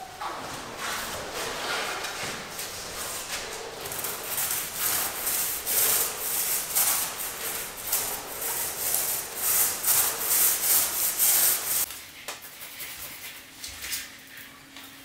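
Long-handled paint roller spreading wet epoxy floor paint over a concrete floor in repeated back-and-forth strokes. The strokes are softer for the last few seconds.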